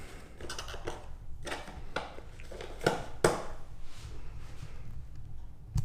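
Packaging being handled: a string of soft knocks and rustles, with the sharpest couple of knocks about three seconds in, then quieter handling.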